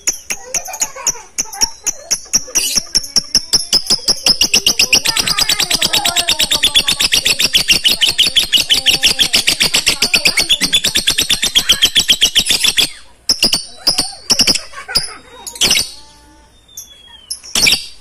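Lovebirds giving a long, rapid run of shrill chattering chirps, the 'ngekek panjang' call. It breaks off suddenly about thirteen seconds in and gives way to a few scattered calls.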